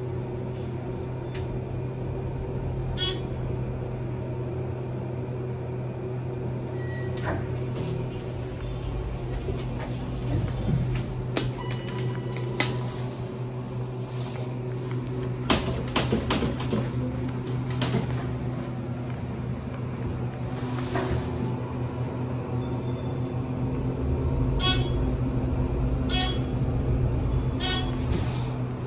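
Steady low hum inside a ThyssenKrupp traction elevator car, with scattered clicks and knocks. A second, higher hum joins past the middle.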